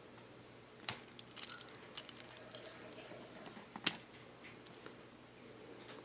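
Plastic Lego Technic pieces being handled and fitted together: scattered light clicks, the sharpest about four seconds in.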